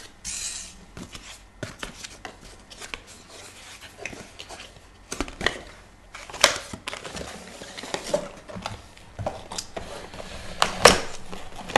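Cardboard packaging of the Zoom H1 accessory pack being handled: a brief scrape as the white inner box slides out of its printed outer sleeve, then scattered taps and knocks of cardboard and hands on the table, the sharpest about six and a half seconds in and near the end.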